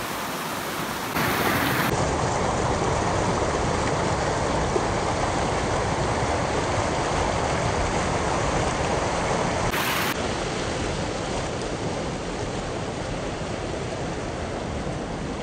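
Shallow stream rushing over rock, a steady wash of water noise that gets louder about a second in and eases a little after the middle.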